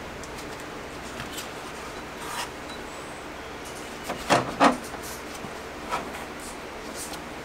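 Rubbing and handling noise as non-adhesive wrap tape is stretched and wound around a foam-insulated mini-split line set, with two short, louder scrapes a little past the middle and a smaller one about six seconds in.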